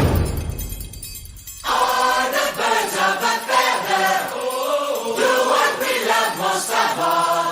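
Song music: a loud percussive passage fades out, and about one and a half seconds in, a group of voices starts singing a chant-like choral line over light backing.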